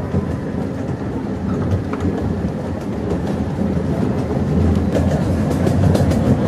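Miniature park railway train running along the track: a steady rumble with light clickety-clack of the wheels over the rail joints.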